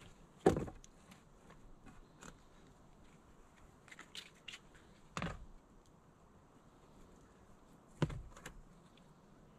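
Wooden poles knocking against each other as they are laid onto a log lean-to roof: three dull knocks, the loudest about half a second in, others about five and eight seconds in, with light clicks and rustles of wood and leaves between.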